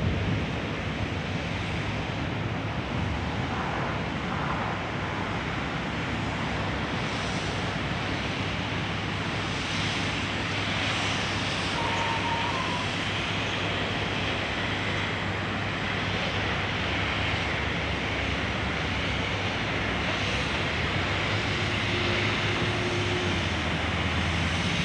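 Wind buffeting the microphone over the steady low drone of a diesel construction-machinery engine running during a crane lift.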